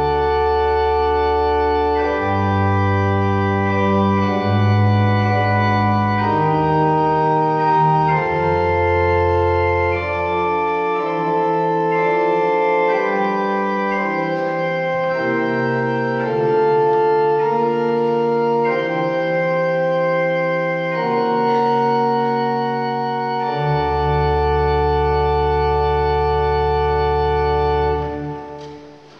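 Church pipe organ playing slow sustained chords over a deep pedal bass. The chords move every second or two, and near the end the last chord is released and dies away in the church's reverberation.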